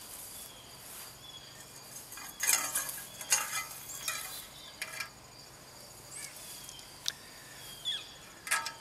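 Scattered rustles and light clicks from hands handling aluminium antenna tubing and a stainless band clamp, in a cluster between about two and five seconds in and a few more near the end, over steady cricket chirring.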